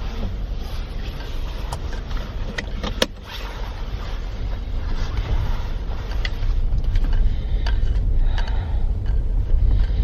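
A vehicle driving slowly, heard from inside: a steady low rumble with scattered light clicks and knocks, one sharp knock about three seconds in.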